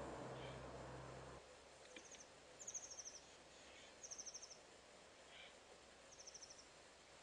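Near silence. A low background hum stops about a second and a half in, and four short, faint, high-pitched rapid chirping trills follow, each about half a second long.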